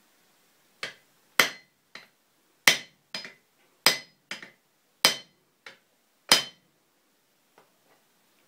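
Blacksmith's hammer striking red-hot iron on an anvil: five heavy ringing blows a little over a second apart, alternating with lighter taps, then the hammering stops about six and a half seconds in.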